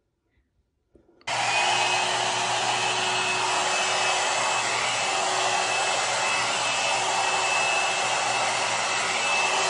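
Sutra Beauty blowout brush, a hair dryer built into a round brush, switched on about a second in and then blowing steadily while it dries hair, a constant rush of air with a faint high whine.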